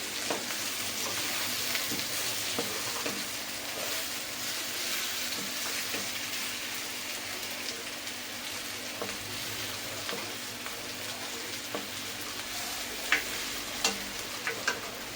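Stuffed bitter gourds with their masala sizzling steadily in hot oil in a pan as they are stirred, with occasional taps of the spatula against the pan, a couple of sharper ones near the end.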